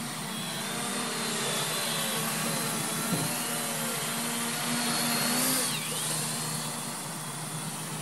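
Sub-250 g Parrot ANAFI quadcopter on Betaflight taking off and flying: a steady, very quiet propeller whir whose pitch wavers as the motors change speed, with a short dip in pitch a little before six seconds in.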